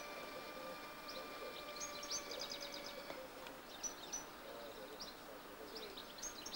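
Small birds chirping in short high calls, with a quick run of rapid chirps about two seconds in, over faint outdoor background noise.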